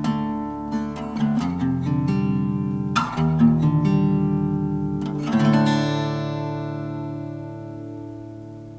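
Outro music on acoustic guitar: picked notes and strummed chords, ending on a final chord that rings out and slowly fades.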